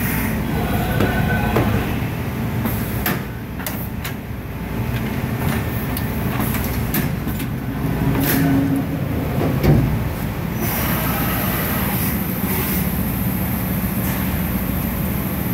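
CNC vertical milling machine cutting metal with an end mill: the spindle and cut make a steady noise, while flying chips rattle against the guards in many small clicks.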